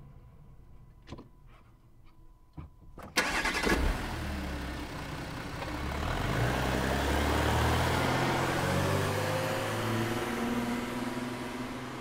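A few faint clicks, then a car engine starts with a sudden loud burst about three seconds in and keeps running, its pitch rising and falling in light revs before settling lower near the end.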